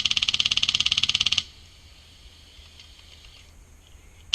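HPA-powered G&G airsoft light machine gun, fitted with a Wolverine Inferno engine, firing a full-auto burst of rapid, evenly spaced shots that stops about a second and a half in.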